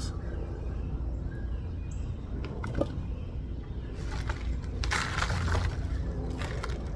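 Hands digging and rustling through loose potting soil in a potato grow bucket, with scattered scrapes and crumbling noises as potatoes are pulled out, over a low steady rumble.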